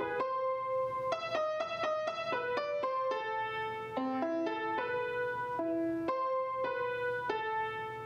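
Upright piano playing a short melody of single notes and chords. The phrase starts over about halfway through and ends on a held note that rings out.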